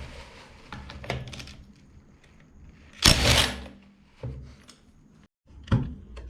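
Clinks and knocks of tools and metal engine parts being handled during a two-stroke motorcycle engine teardown: scattered sharp knocks, a louder half-second clatter about three seconds in, and single knocks near the end.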